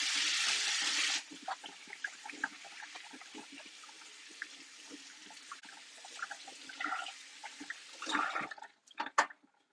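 Kitchen sink tap running hard for hand-washing, shut off abruptly about a second in; then water splashing and dripping with small scattered knocks, and a few louder short sounds near the end.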